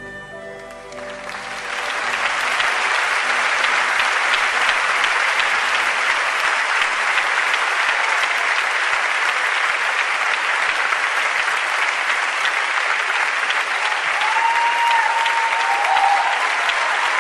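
Concert audience applauding, swelling up over the first two seconds as the band's last sustained notes die away, then holding steady.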